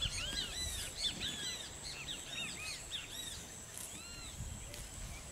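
Small birds chirping: many short chirps that rise and fall in pitch, crowded together in the first few seconds and thinning out later.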